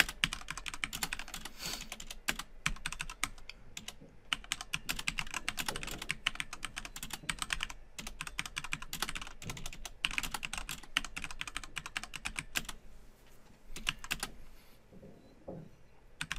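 Typing on a computer keyboard: quick runs of keystrokes with short breaks, then a pause of a few seconds before a few more keys near the end.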